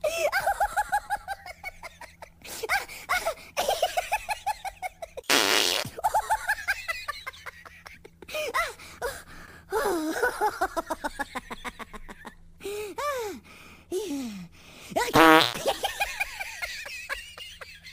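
A baby blowing raspberries: a string of buzzing lip trills, each a second or two long, with the voice rising and falling through them.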